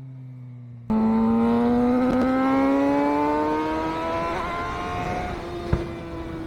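Suzuki GSX-R600's inline-four engine through a CS Racing full exhaust with the dB killer removed, cutting in about a second in and running hard, its note climbing slowly and steadily for several seconds and then easing off a little. A single sharp click sounds near the end.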